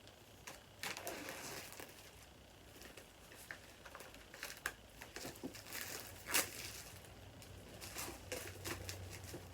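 Packaging of a boxed iPad being handled: irregular crinkling and rustling with scattered light clicks and taps, and one sharper click about six seconds in.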